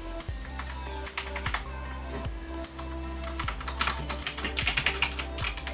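Key presses on an Alienware AW768 mechanical keyboard: scattered clicks, then a quick flurry of keystrokes in the second half, over background music.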